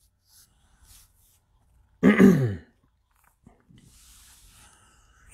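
A man clears his throat once, briefly, about two seconds in. A faint hiss follows in the last second and a half.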